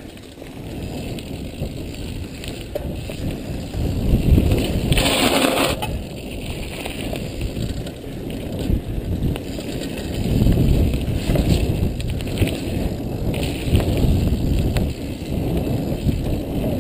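Mountain bike riding fast over gravel singletrack: tyres crunching on loose stones and the bike rattling over bumps, with a louder rush about five seconds in.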